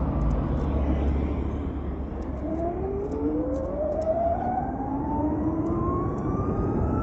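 Ather 450X electric scooter's motor whine climbing steadily in pitch as it accelerates, over low road and wind rumble.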